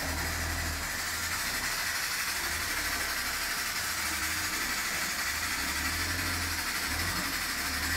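Daewoo G25E LPG forklift's engine running, a low rumble that swells and eases under a steady hiss.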